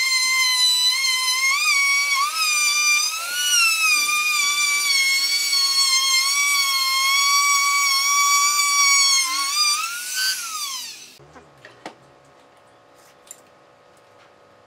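High-pitched whine of a power tool's motor running under varying load, its pitch wavering and dipping as it cuts. About ten seconds in the pitch briefly rises, then falls as the tool spins down and stops, leaving a few faint clicks of handling.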